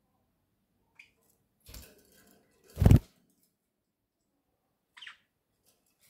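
Budgerigar giving two short chirps, one about a second in and one near the end, with a rustle and then a loud thump about halfway through.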